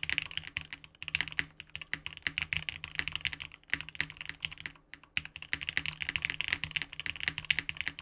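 Typing on a Kaze TKL custom mechanical keyboard with linear switches: a rapid, steady stream of key clacks, broken by two brief pauses, just before one second in and near five seconds in.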